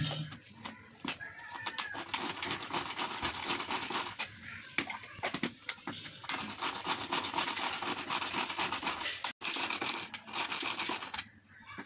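Shallots being chopped: a dense run of quick cutting and rattling clicks, with a short break about nine seconds in.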